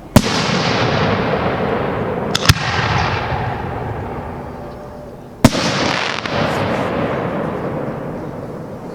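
Aerial fireworks bursting: a loud bang near the start, a quick double bang about two and a half seconds in, and another bang about five and a half seconds in, each followed by a long fading crackle.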